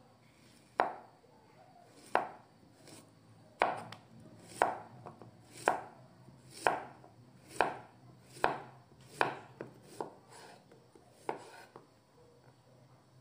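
Chef's knife slicing a zucchini into rounds on a wooden cutting board: about a dozen sharp knocks of the blade meeting the board, roughly one a second and unevenly spaced.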